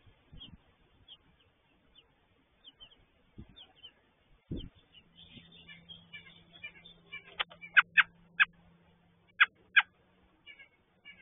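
American robin chirps: faint, short high chirps at first, then in the second half a run of about six loud, sharp chirps in quick succession. A couple of low thumps come a few seconds in, and a faint steady hum runs under the second half.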